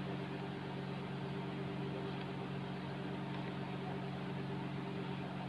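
A steady low hum made of several fixed tones, over a constant hiss, with no change.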